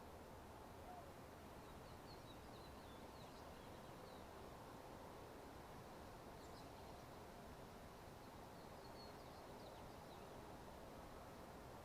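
Near silence: a faint steady background hiss, with faint short high chirps scattered through it in two loose runs.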